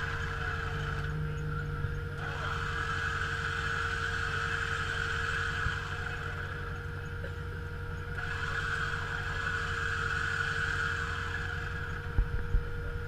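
Off-road vehicle with low rumble throughout and a steady whine that switches on and off in spells of about three and a half seconds. Two sharp knocks near the end.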